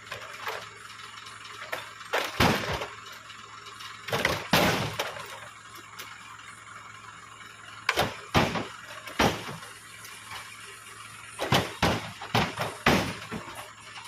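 Heavy oil palm fruit bunches being heaved up into a lorry's cargo bed, landing with a string of loud knocks at irregular spacing, often two or three close together.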